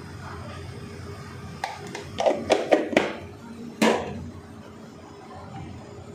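A quick run of sharp knocks and clatters as kitchen containers are handled and set down on the counter, bunched between about one and a half and four seconds in, over a low steady hum.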